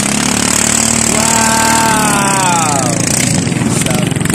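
Engine of a small racing boat running at high revs; from about a second in, a higher engine note holds and then falls in pitch over roughly two seconds.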